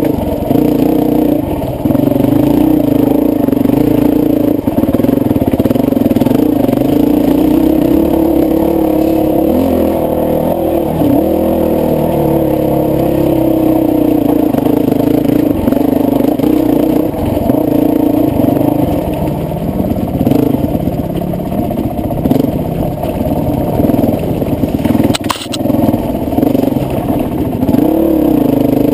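Honda CRF450X's single-cylinder four-stroke engine running on a dirt bike, its pitch rising and falling as the throttle is worked on and off over rough ground. A single sharp knock sounds near the end.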